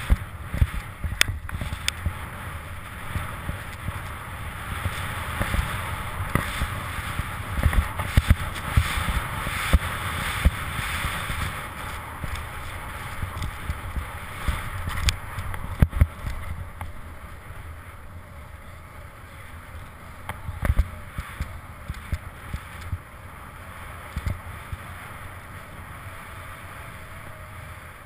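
Skis hissing through deep powder snow, with wind rumbling on the microphone and scattered sharp knocks; the hiss eases about halfway through.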